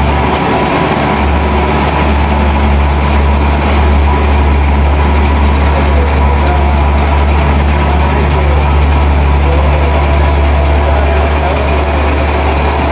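Snack food extrusion and core-filling line running: motors, extruder and conveyors make a loud, steady deep hum with a thin high whine over an even rushing noise.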